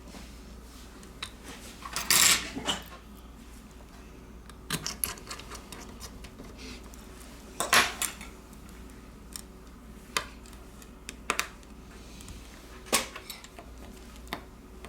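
Scattered clicks and taps of small hand tools and plastic and metal phone parts being handled while a smartphone is reassembled. The loudest clatters come about two seconds in and just before eight seconds in.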